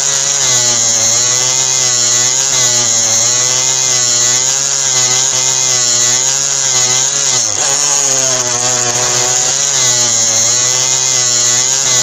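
Small DC motor of a homemade hand drill whining as its bit drills into plastic, with a steady hum and a high brush hiss; its pitch wavers up and down as the bit loads, dipping lowest about seven and a half seconds in.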